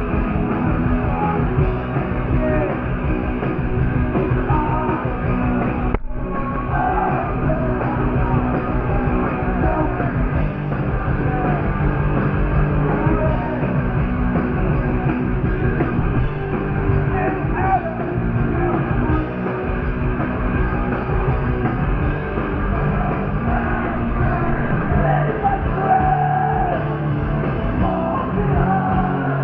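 Punk rock band playing live, with singing over loud amplified instruments. The sound is dull, with little treble. There is a momentary dropout about six seconds in.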